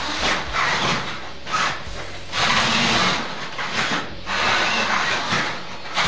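Drive motors and gearbox of an inflatable remote-control R2-D2 toy whirring in several bursts of about a second each, with short pauses between, as it is steered across the floor.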